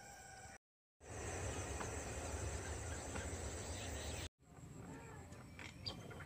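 Outdoor rural ambience: a steady, high-pitched insect chirring over a low rumble. The sound drops out to dead silence for a moment about half a second in and again at about four seconds, where the clips are cut together.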